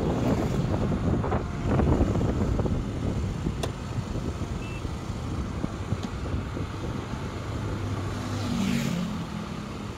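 Wind rush on the microphone and engine and road noise while riding a motor two-wheeler, a low rumble that slowly eases off. An oncoming motorcycle passes close by about nine seconds in.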